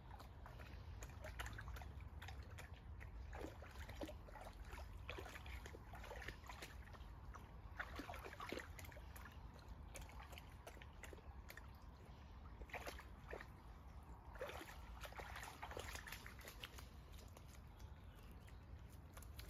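A working cocker spaniel splashing and sloshing about in the shallows of a stream, nosing in the water: faint, irregular splashes and drips.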